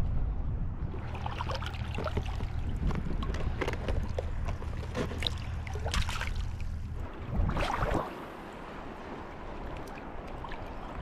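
An engine's steady low hum that stops about seven seconds in, over splashing water and wind noise, with a louder rush of noise just before the hum ends.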